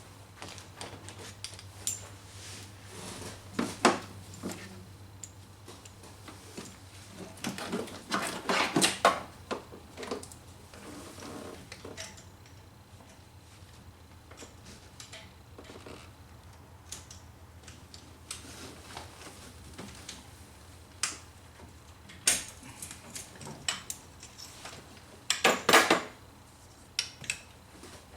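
Metal hand tools and parts clinking and clattering in irregular bursts of clicks and knocks. There is a busier cluster about eight seconds in and another near the end.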